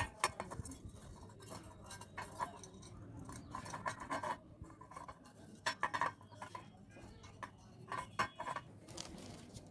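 Irregular light clinks, taps and scrapes of small metal parts and tools being handled during hand repair work on an electric iron, over a low steady hum.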